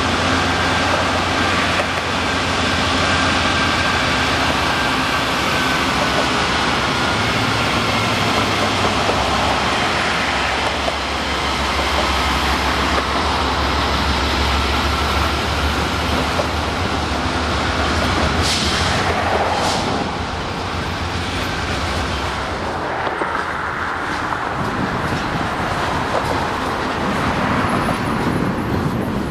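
Lead diesel-electric locomotives of a loaded coal train passing close by, engines running with a low drone and a whine that slowly falls in pitch. The engine drone fades out about 21 seconds in, leaving the steady rolling noise of loaded coal hopper cars going past.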